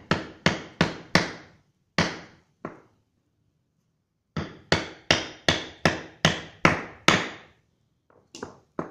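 Claw hammer striking a socket used as a drift, driving a needle bearing into a Honda CB150R Pro-Link suspension linkage on a wooden block. Sharp metallic strikes, each ringing briefly: six in the first three seconds, a pause, then eight at about two and a half a second, and a few lighter taps near the end.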